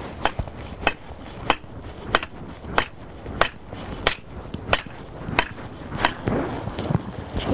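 Hand hammer striking the top of a metal vane shear rod, driving the vane another 20 centimetres deeper into the soil. Sharp, evenly spaced blows, about three every two seconds.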